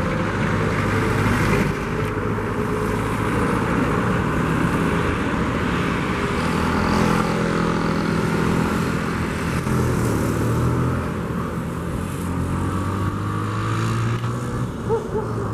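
Motor vehicle engine running, its pitch slowly rising and falling, over steady road noise.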